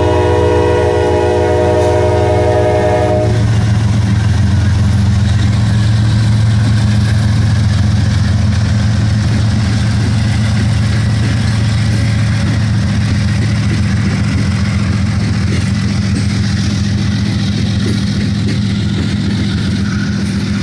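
Diesel locomotive air horn sounding a held chord that cuts off about three seconds in, over the loud, steady low drone of several CSX diesel locomotives' engines as the consist rolls past.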